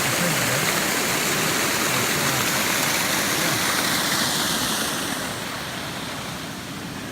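Water rushing steadily over a small dam waterfall, growing quieter and duller about five seconds in.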